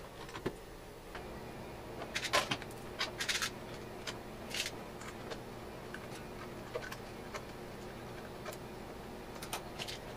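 Scattered light clicks and rattles of small hardware and a screwdriver being handled on a Lexan sheet on a workbench, with quick clusters of clicks about two to four seconds in and again near the end.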